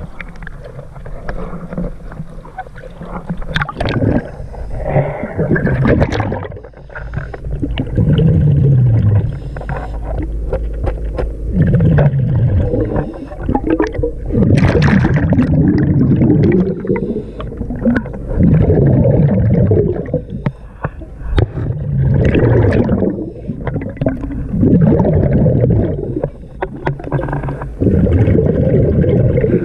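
Scuba diver's regulator breathing underwater: repeated loud exhalations of gurgling bubbles every three to four seconds, with low falling groans between them.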